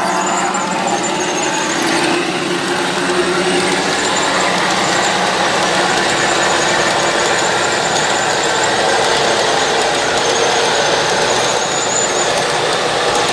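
G scale model freight cars rolling past on track, their wheels making a steady rolling noise with a faint high squeal that comes and goes.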